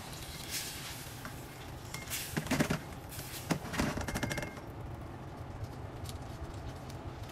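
Food sizzling in a stainless steel wok while it is stir-fried. A plastic spatula scrapes and clatters against the pan, and the pan is tossed, in a busy stretch from about two to four and a half seconds in.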